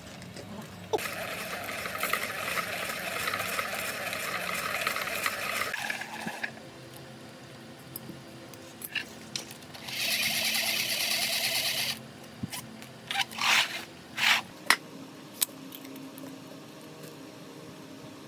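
Hand-cranked geared coil winder whirring and rattling as it is turned, winding enamelled copper wire into a coil: a long run of about five seconds, then a shorter, brighter run of about two seconds. A few clicks and light knocks follow as the coil is handled.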